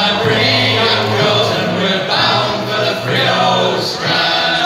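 Music of a choir of men's voices singing over a held low bass note that shifts pitch every second or so.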